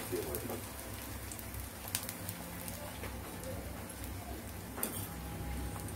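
Eggplant slices sizzling in shallow oil in a stainless steel frying pan on a low flame, a steady gentle hiss with a couple of sharp clicks, one about two seconds in and one near the end.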